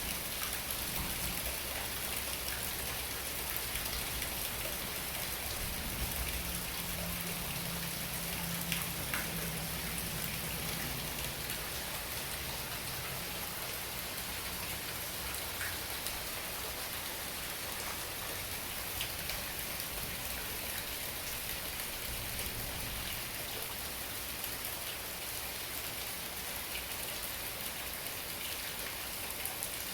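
Tropical-storm rain falling steadily.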